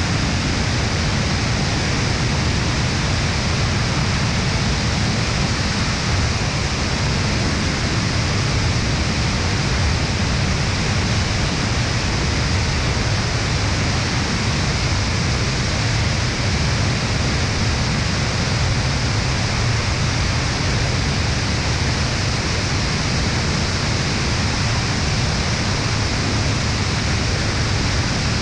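Steady rush of wind over an action camera mounted outside on the wing of an Aeroprakt A22 ultralight in flight, an even noise heaviest in the low end and unchanging throughout.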